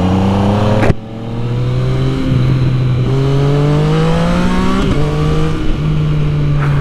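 Yamaha MT-09's inline three-cylinder engine pulling hard through a LeoVince full exhaust system, the pitch climbing and dropping back at upshifts about a second in and again about five seconds in.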